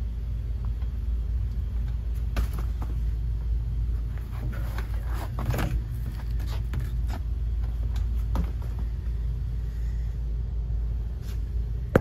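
Dirty pleated air filters being handled and pulled from an air handler's filter rack: a few short knocks and scrapes, the loudest bunched about five seconds in, over a steady low machinery rumble.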